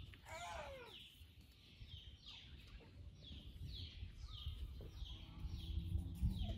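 A bird calling over and over outdoors, a short falling chirp about twice a second, with one louder, lower falling call near the start. A low rumble builds toward the end.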